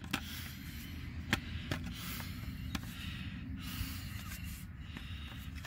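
A few light clicks and taps of hard plastic as the pressure washer's white plastic tank and black plastic housing are handled, over a steady low rumble.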